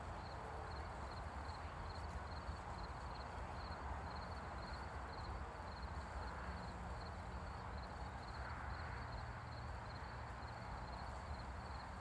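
Crickets chirping in an even, high-pitched rhythm of about two chirps a second, over a low rumble.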